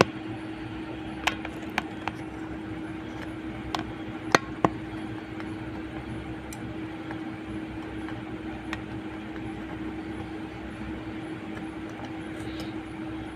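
Hot-air rework blower running with a steady hum and hiss while reflowing solder on a phone's charging connector, with several light clicks of metal tools on the board in the first few seconds.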